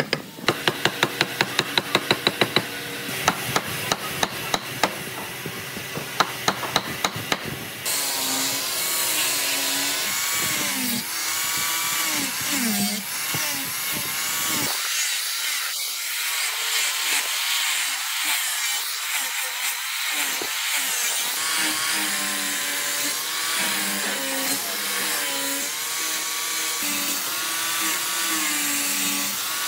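Woodworking tools on wood: a quick run of sharp taps, about three or four a second, for the first eight seconds, then a handheld power tool running against the wood, its motor pitch wavering up and down as it bites.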